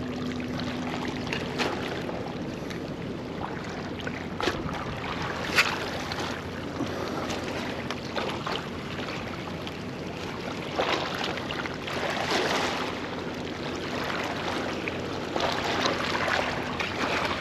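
Water lapping and splashing against a small fishing boat's hull, with wind on the microphone and a faint steady hum underneath. Scattered light knocks and clicks come through, the sharpest about four and a half and five and a half seconds in.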